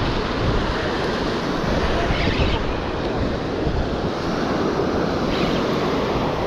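Wind blowing on the microphone over small surf washing up a sandy beach, a steady rushing noise with brief brighter hisses about two and five seconds in.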